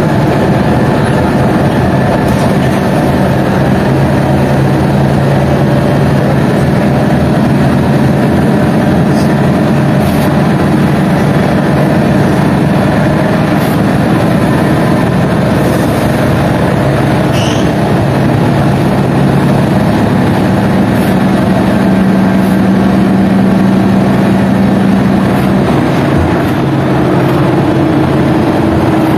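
Ikarus articulated bus's diesel engine running steadily under way, heard from inside the passenger cabin, over road and body noise; its pitch shifts and rises near the end. A brief high squeak sounds about two-thirds through, from a bus that squeaks a bit.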